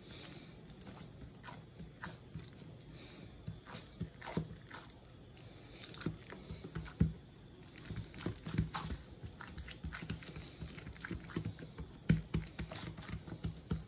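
Hands patting and pressing soft dough on plastic wrap: irregular soft taps and slaps with the light crinkle of the wrap.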